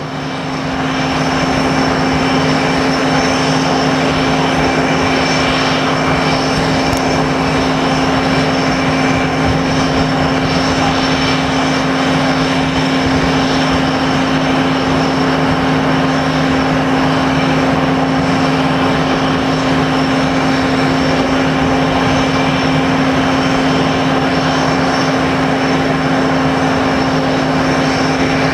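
Engine running steadily: a constant drone with a low hum and a thin high whine, fading in over the first second.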